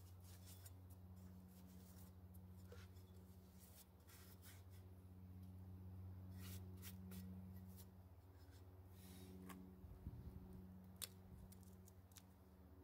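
Faint light clicks and rubbing from hands wiping and handling a strut's rubber boot and top mount, over a steady low hum.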